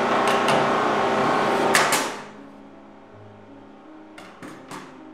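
Air compressor running with a steady hum, broken by a few sharp clacks. It cuts off about two seconds in. After that there are only a few light knocks as the nailer is set down.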